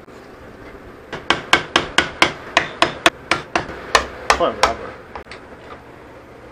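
Rapid hammer blows on metal, about four a second, struck against the aluminium lower unit of a Johnson 40 hp outboard. They come in one run starting about a second in, with a few spaced taps after it. The blows are an attempt to drive apart a part of the gearcase that is stuck.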